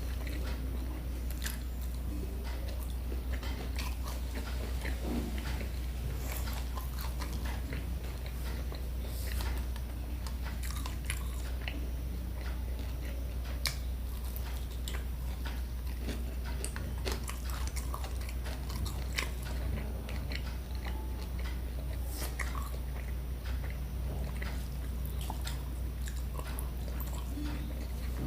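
Close-up eating sounds: chewing and biting with scattered crunches and mouth clicks, as of fried fish and fried vegetables eaten with watery rice, over a steady low hum.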